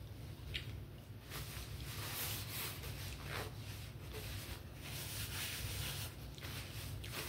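A low steady room hum with faint rustling and a few soft clicks.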